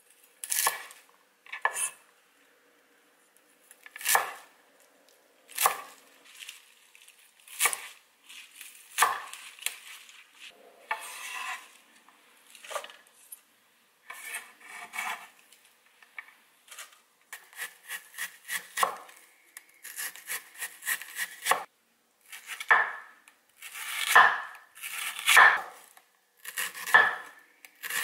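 Kitchen knife chopping arugula, then slicing a red onion, on a wooden cutting board: separate sharp strokes against the board, spaced out at first and coming in quicker runs of several a second later on.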